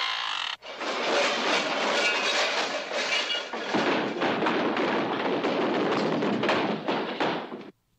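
Cartoon sound effect of a junk-stuffed closet spilling out: a long, dense crashing and clattering of falling objects that stops abruptly near the end. It is preceded by a short pitched sound at the very start.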